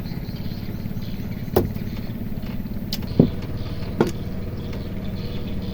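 Small boat engine running steadily with an even low pulsing hum, with a few short sharp clicks over the top.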